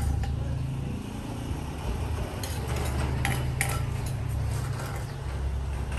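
Utensils clinking against dishes and bowls during salad preparation, with a few sharp clicks in the middle, over a steady low rumble.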